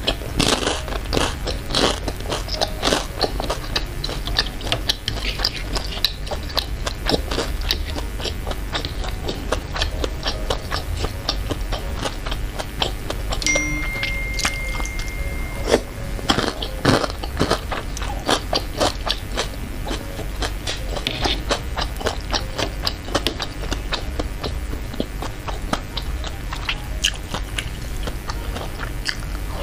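Close-miked chewing of meatballs in chili broth: wet mouth sounds with many quick, irregular clicks, going on without a break.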